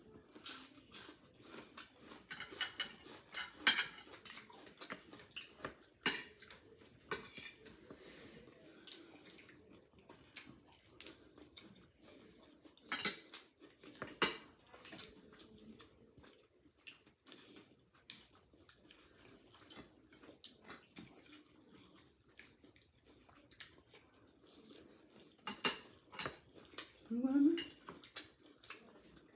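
Steamed clam shells clicking and clattering against each other and against dishes as clams are picked from a heaped bowl. The clinks are scattered and irregular.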